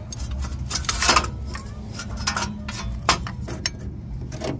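Metal clicks and clanks from a C-clamp and steel tools worked against a rear disc brake caliper, pressing the piston back with an old brake pad, with the loudest clatter about a second in. A steady low hum runs underneath.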